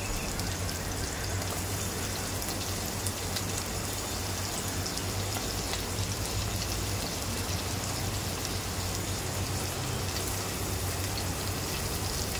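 Sliced onions and raw chicken mince frying in hot oil in a steel pan: a steady sizzle with faint crackles.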